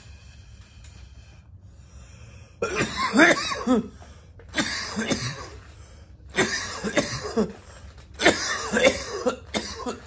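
A man coughing hard in four rough fits, starting about two and a half seconds in: a smoker's cough brought on by a hit of cannabis smoke.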